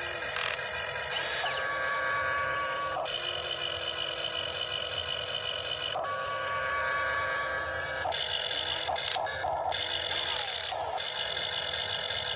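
Huina 1592 RC excavator's electric gear motors whining as the boom, arm and cab swing are worked, the whine changing pitch every few seconds as one motion gives way to the next. A few brief hissing scrapes come in near the start and again near the end.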